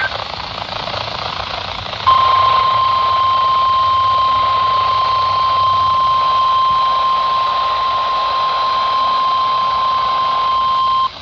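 NOAA Weather Radio warning alarm tone, the 1050 Hz tone, heard through a weather radio receiver: after about two seconds of radio hiss, a single steady high tone sounds for about nine seconds and cuts off suddenly. The tone marks a warning-level alert, here a severe thunderstorm warning.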